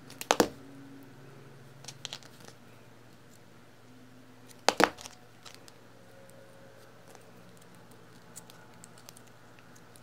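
Needle-nose pliers and a small metal battery terminal clicking as the terminal's flange is folded over a wire. Sharp clicks come near the start and again about five seconds in, with lighter clicks around two seconds and faint handling ticks between.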